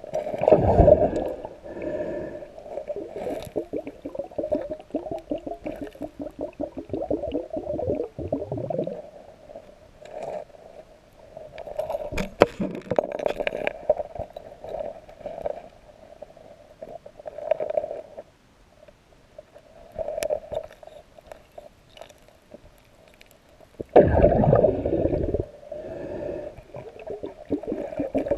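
Underwater gurgling and bubbling, heard through a submerged camera, with scrapes and knocks of a gloved hand and a plastic snipe tube on rock and gravel. Louder surges of bubbling come at the start and again about 24 seconds in.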